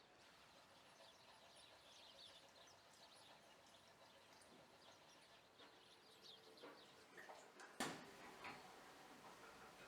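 Near silence with faint bird chirping throughout, and a single sharp click near the end.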